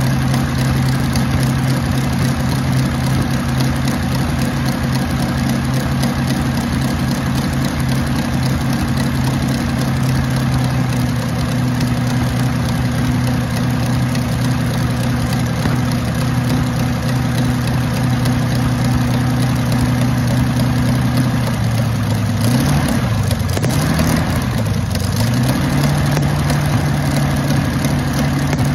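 Sunbeam 1000hp's rebuilt rear Sunbeam Matabele V12 aero engine running steadily at idle. About three-quarters of the way through, its speed dips and picks up again a couple of times, then holds a little higher before easing back near the end.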